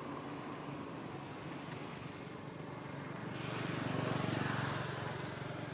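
Road traffic: a motor vehicle drives past, its engine sound growing louder to a peak about four seconds in and then fading away.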